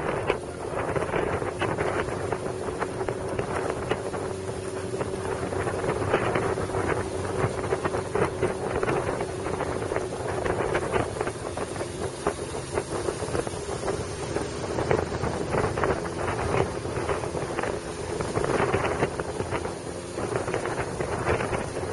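Wind rushing and buffeting over the microphone of a camera carried on a motorcycle at motorway speed, with the bike's engine and road noise running steadily beneath.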